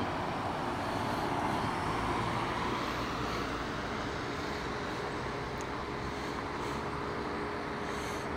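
Steady road traffic noise with a faint hum, swelling slightly in the first couple of seconds as a car passes.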